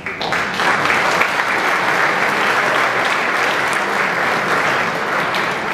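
A large seated audience applauding: dense, even clapping that starts abruptly just after the opening and eases off slightly near the end.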